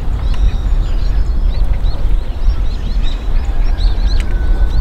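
Small birds chirping in many short, high, repeated notes over a loud, steady low rumble, with a brief thin whistle near the end.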